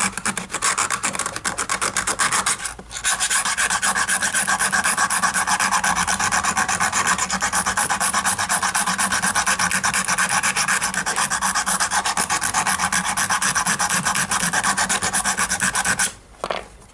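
Needle file rasping in quick back-and-forth strokes inside a rivet hole in a metal armour plate, widening it by about half a millimetre so the rivet can slide and the joint moves more freely. There is a brief pause about three seconds in, and the filing stops about a second before the end.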